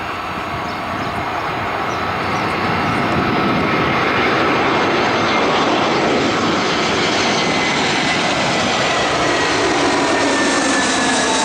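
Airbus A330's jet engines running at taxi power: a steady rushing whine that grows louder over the first few seconds and then holds, with high tones slowly sliding down in pitch.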